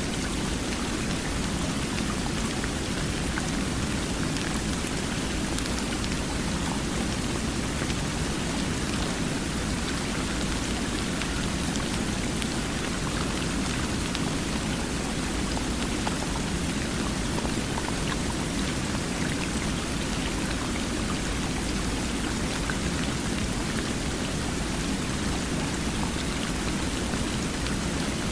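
Flowing water: a steady, even rushing hiss that does not change, with faint scattered drip-like ticks.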